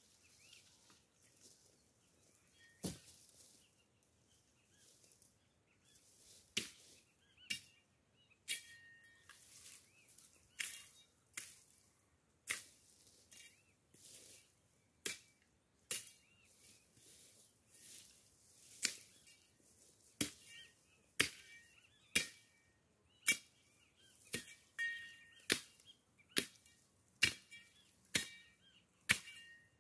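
Machete chopping through dry brush and branches: about two dozen sharp strikes, roughly one a second at an uneven pace. Birds chirp faintly now and then.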